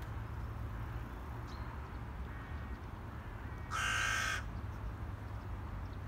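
A crow gives one harsh caw about four seconds in, over a steady low background rumble.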